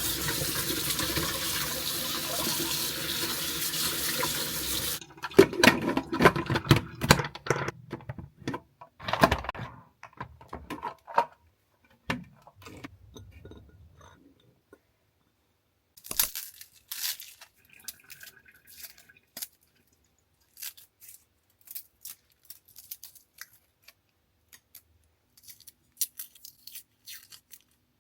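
Water running from a tap into a sink for about five seconds and cutting off suddenly. Then a few seconds of knocks and clatter, and scattered faint clicks after that.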